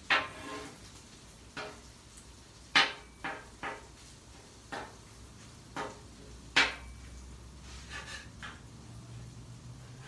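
Steel spatula clacking and scraping against the flat top griddle as it chops and pushes scrambled eggs: about ten sharp metal knocks at uneven intervals, the loudest near the start, a little under three seconds in and about two-thirds through.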